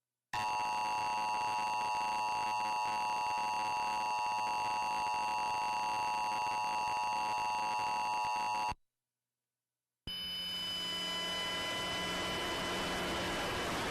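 Emergency Alert System attention signal played through a TV: a steady two-tone beep held for about eight seconds, sounding during a monthly EAS test. It cuts off suddenly, and after about a second of silence a hissing, humming broadcast feed comes in.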